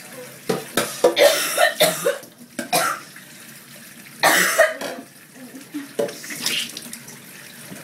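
A woman coughing and sputtering after a mouthful of hot chilli powder: a quick string of harsh coughs about a second in, another shortly after, and a longer, stronger cough a little past halfway.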